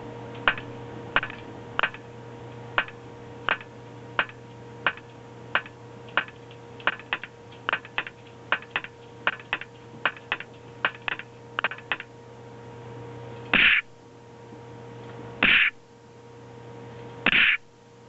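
A run of short, sharp sound-effect hits, roughly two a second, then three longer, louder bursts about two seconds apart, over a steady electrical hum. The effects are played by a wearable motion-sensing system as the wearer moves.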